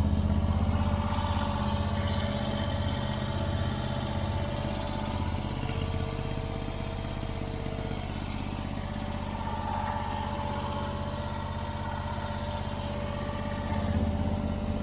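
Arteer QB-480 mini track loader's small gasoline engine idling steadily.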